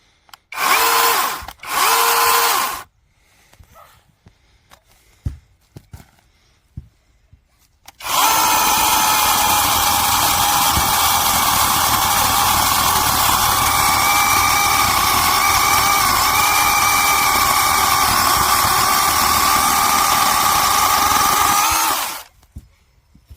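Brushless 1000 W mini battery chainsaw (6-inch bar) given two short trigger bursts, then run steadily for about fourteen seconds while cutting through a branch, stopping abruptly near the end.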